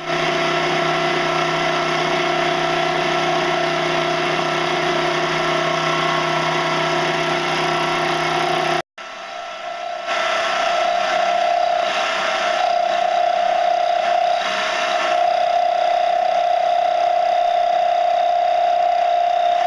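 Benchtop metal lathe running steadily, its motor and spinning chuck giving a steady whine while a cutting tool turns down a white plastic rod into bearing roller pins. The sound breaks off for an instant about nine seconds in, then runs on with a different steady tone.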